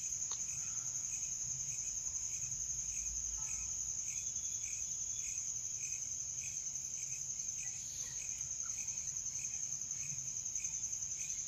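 Crickets chirping: a steady, high, fast trill, with a lower chirp repeating a few times a second.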